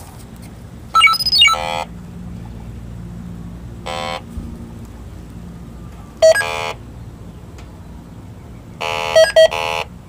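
Electronic refrigerant leak detector, set to high sensitivity, sounding four short buzzing alarm bursts, the first rising in pitch, as its probe picks up refrigerant around the AC service valve. A faint steady low hum lies underneath.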